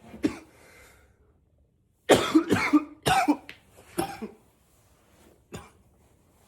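A man's coughing spell: one short cough at the start, then a rapid run of loud coughs about two seconds in, tailing off to a last faint cough near the end.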